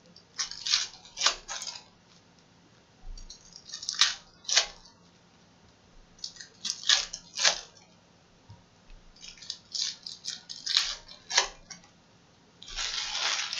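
Foil trading-card pack wrappers being torn open and crinkled by hand, in about five short bursts of crackling a second or two apart.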